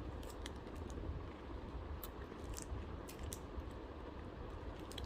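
Faint, irregular crunching clicks of a person chewing a honeycomb chocolate bar, with a low steady hum beneath.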